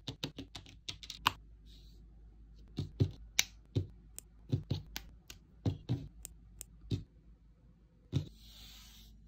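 Small plastic parts of a Blokees Transformers Soundwave figure kit clicking and snapping together by hand. A quick run of sharp clicks comes first, then single clicks at irregular intervals of about half a second, and a short scrape near the end.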